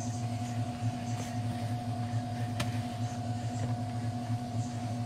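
A steady low hum from a running kitchen appliance, with the soft scraping and squishing of hands mixing flour dough in a plastic bowl, and a single sharp click about halfway through.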